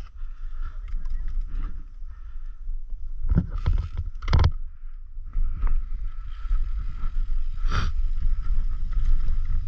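Mountain bike rolling down a rocky dirt trail: a steady low rumble of tyres on stones and wind on the camera's microphone, with sharp knocks and rattles of the bike over bumps, the loudest a little after three seconds, about four and a half seconds in and near eight seconds.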